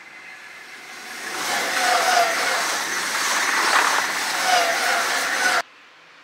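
Electric passenger train passing close at speed, the rush of wheels on rails swelling about a second in and staying loud, with some whining tones through it. It cuts off suddenly near the end.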